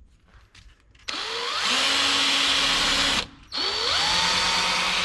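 Electric drill running a bit into the heads of drive rivets to drill them off, in two bursts: it spins up with a rising whine about a second in, stops briefly near the middle, then spins up again and keeps cutting.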